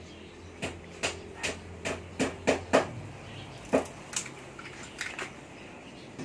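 A run of about a dozen sharp, irregular clicks and knocks from hands working on an electric kickscooter as it is readied to spin its rear hub motor, with a low steady hum under the first half.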